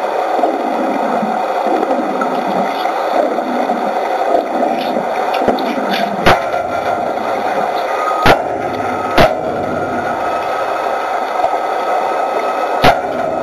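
Underwater wet-welding noise at a steel ship hull: a steady rushing hiss of bubbles and water. A few sharp clicks come as the welding arc is struck, and from about halfway through a thin steady high tone runs while the arc burns.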